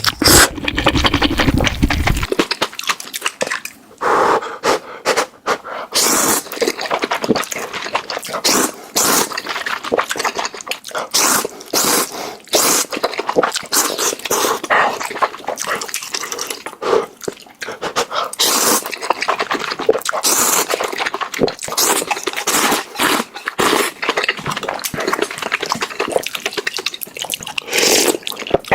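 Close-miked eating of noodles: repeated wet slurps and chewing, a rapid irregular series of short sounds with brief pauses between.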